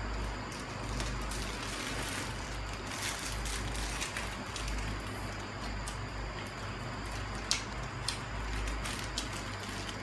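Chewing of crisp fried rice cake, with faint scattered crunches and clicks, one sharper click about seven and a half seconds in, over a steady background hiss and low hum.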